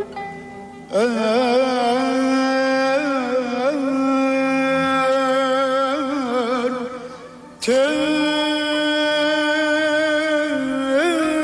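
A woman singing long, ornamented, wavering notes of a Turkish classical song in hüzzam makam over soft instrumental accompaniment. The voice breaks off briefly twice, about a second in and again after about seven seconds, and comes back in suddenly each time.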